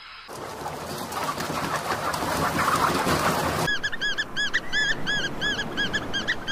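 A dense rushing noise for the first few seconds, then a flock of boobies calling: a rapid run of arched, whistled calls, several a second, overlapping.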